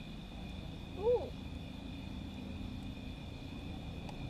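Wood fire burning in a metal fire ring, heard as a low steady rumble with a steady high-pitched hum over it. About a second in, a young child makes one short rising-then-falling vocal sound, and a faint click or two follows near the end.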